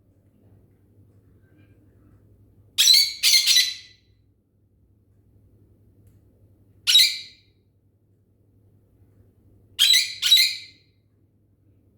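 A bird squawking: five short, harsh, high calls, a quick pair about three seconds in, a single call about seven seconds in, and another quick pair about ten seconds in.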